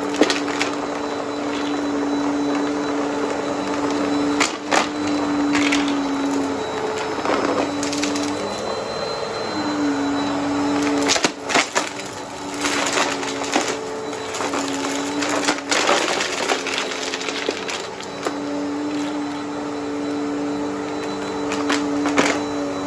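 Upright vacuum cleaner running with a steady motor hum that shifts slightly in pitch as it is pushed back and forth, with sharp crunches and crackles of dry debris being sucked up through the brush roll, thickest about halfway through.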